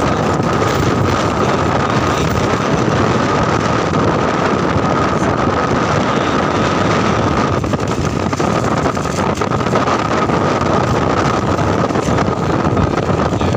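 Motorcycle engine running while riding at a steady pace, with heavy wind noise on the handlebar-mounted microphone and a steady whine throughout.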